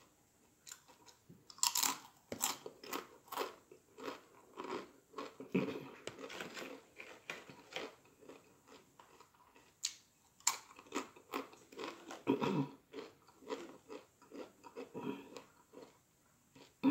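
Close-miked crunching and chewing of Doritos Flamin' Hot Nacho tortilla chips: irregular crisp crunches, a few of them louder bites.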